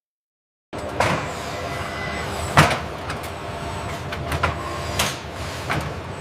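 After a moment of silence, a steady mechanical hum of industrial machinery starts, with a few sharp knocks and clanks, the loudest about two and a half seconds in.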